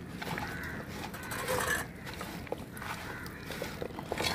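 Hands squishing and turning raw chicken pieces in masala, shallots and green chillies in an aluminium bowl, a soft wet squelching that comes and goes about once a second.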